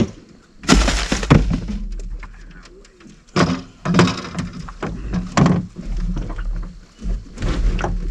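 Knocks, thumps and clatter of fishing gear being handled in a small boat, with a storage lid banging shut. There is a string of separate hard knocks, bunched about a second in and again in the middle.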